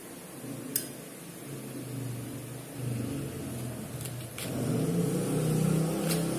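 Kitchen knife cutting a lemon in half on a plastic cutting board, with a few sharp taps and clicks. Under it a low engine-like hum comes in and grows louder in the second half.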